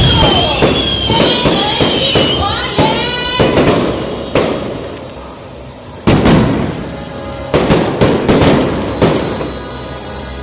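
Fireworks display: aerial shells bursting in a rapid series of sharp bangs and crackles, some trailing high whistles in the first few seconds. The bangs ease off around five seconds in, then pick up again.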